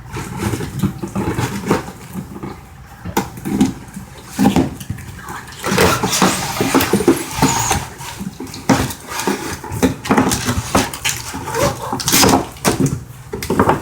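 Box and packaging being handled and opened: rustling and scraping, with many irregular clicks and knocks.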